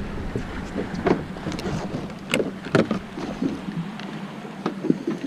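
A fishing boat's engine runs steadily with a low hum, under a few scattered sharp knocks and clicks. The low rumble drops away about four seconds in.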